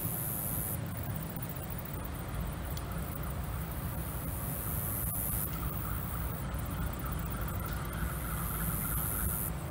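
GE B36-7 diesel-electric locomotive running at low speed with a steady low rumble as it creeps forward along the spur, with a faint high squeal from the wheels on the rails in the second half.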